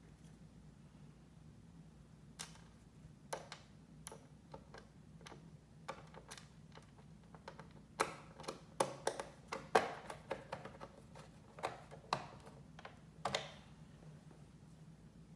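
Irregular light clicks and taps of a hand screwdriver and small screws working against a laptop's plastic case, sparse at first and thickest about eight to thirteen seconds in.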